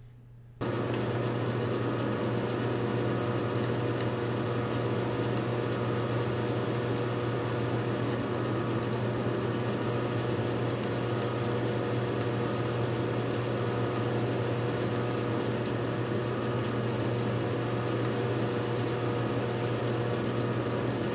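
Drill press motor running steadily with a constant hum as a twist drill bores holes into a metal plate. It starts suddenly about half a second in.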